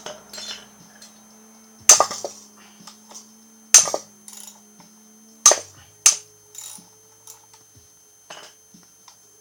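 Hammer blows on metal, striking to break stuck fasteners loose on a Briggs & Stratton 3.5 hp engine during teardown: four hard, ringing strikes spaced about two seconds apart, the last two close together, then a few lighter knocks.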